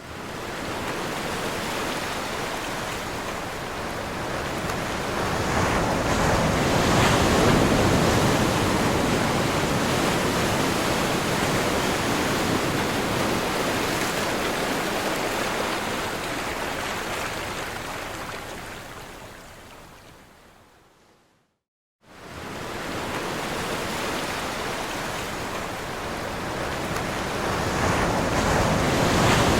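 Ocean waves crashing and washing on a shore, a dense, steady rush of surf that swells in the first third, fades out about two-thirds of the way through, and after a brief silence starts again abruptly, as a looped recording does.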